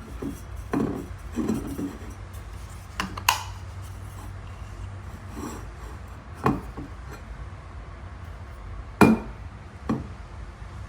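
Insulated stainless steel water bottle and its push-button flip lid being handled: some rubbing early, then several sharp clicks and knocks, the loudest near the end, over a low steady hum.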